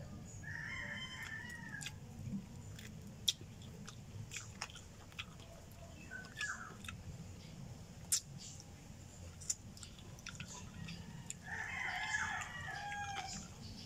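Close-up chewing and biting on cooked chicken feet, with sharp crunching clicks scattered through. A rooster crows faintly about a second in and again near the end.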